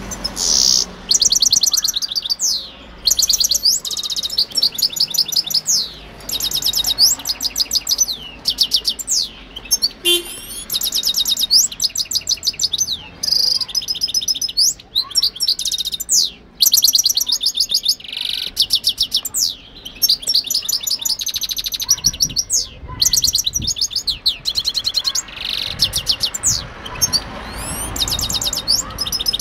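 Caged European goldfinch singing: long runs of rapid, high-pitched twittering and trilled notes, broken by short pauses.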